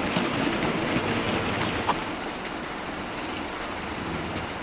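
OO gauge model freight train running on the layout: a steady rolling rumble of wheels on track with a few sharp clicks over rail joints, quieter from about two seconds in.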